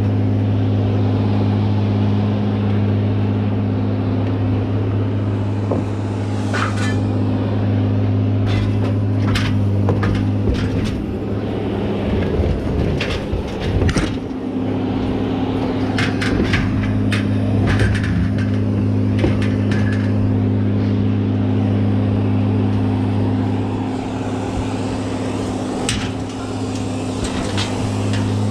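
A vehicle engine idling steadily, with scattered knocks and clanks over it.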